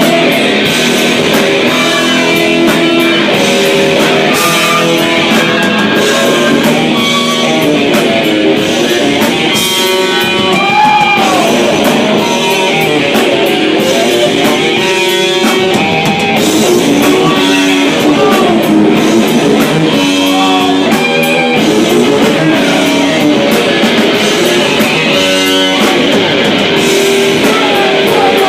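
Rock music with loud guitars and a drum kit.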